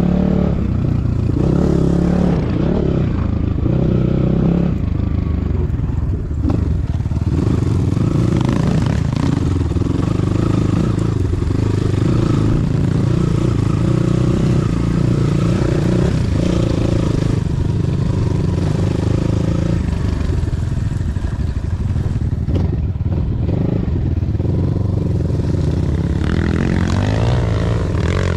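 A motor vehicle's engine running continuously, its note shifting up and down in pitch several times as the throttle changes.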